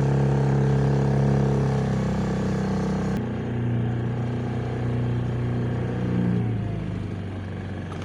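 Small sailboat's motor running steadily under way, its pitch dropping about two-thirds of the way through as it is throttled back.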